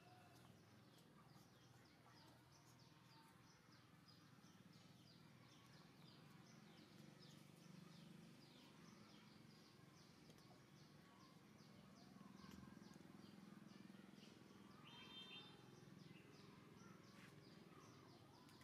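Near silence: faint outdoor background with faint, rapid high bird chirps.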